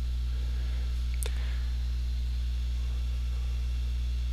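Steady low electrical hum, with a faint click about a second in.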